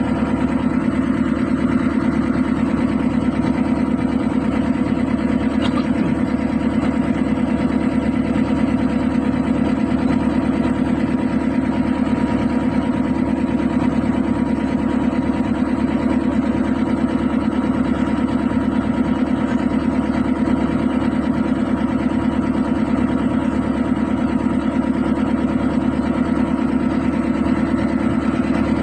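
Diesel engine running steadily at idle, a fast, even pulse with no change in speed.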